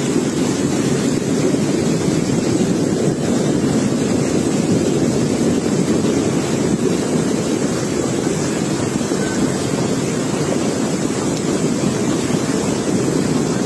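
Muddy floodwater rushing in a fast torrent down a street: a loud, steady rush of water.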